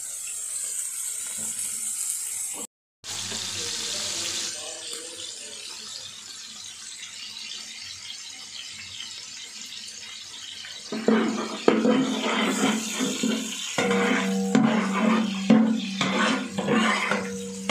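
Fat and ghee starting to sizzle in a hot aluminium pot, a steady frying hiss. From about 11 seconds in, a louder steady low hum with clattering knocks takes over.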